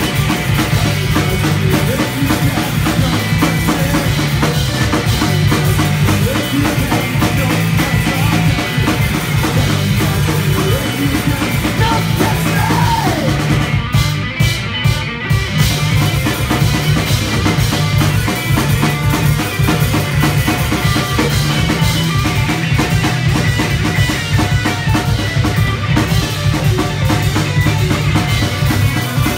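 Live punk rock band playing loud, with distorted electric guitar, electric bass and a drum kit. About halfway through the band drops out for a second or two to a few sharp hits, then comes back in.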